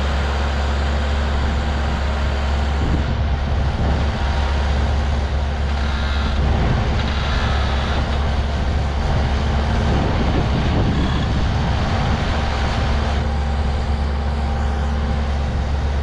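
Skid steer engine running steadily with a strong low hum; from about three seconds in to about thirteen seconds the sound gets busier and a little louder, then settles back.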